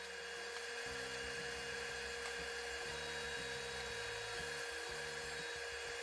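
Jointer motor running with a steady whine.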